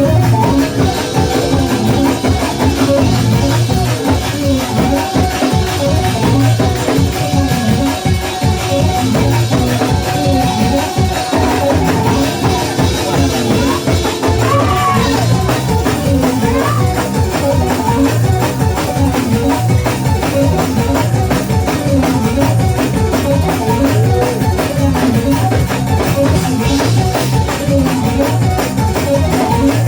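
Live gospel praise music played loud, with a drum kit keeping a steady driving beat under sustained instrument chords.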